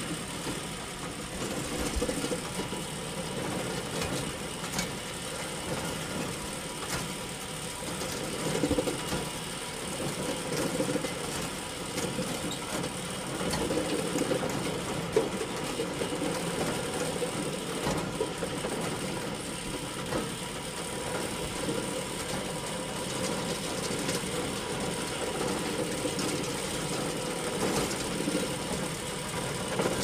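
Bale elevator running steadily: the continuous mechanical rattle and hum of its drive and chain conveyor, with occasional short knocks.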